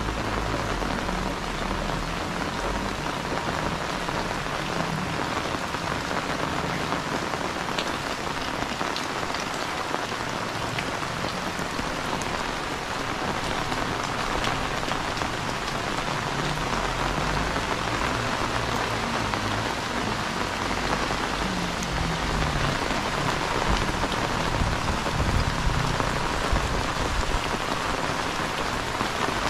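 Heavy rain falling steadily, an even hiss with scattered drop ticks and a faint low rumble underneath, growing a little louder in the last few seconds.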